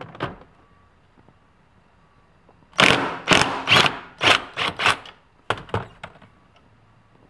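Impact gun hammering at a 16 mm seat-mounting bolt in a string of short bursts, about two to three a second, for around two seconds, then twice more briefly. It is loosening the bolt.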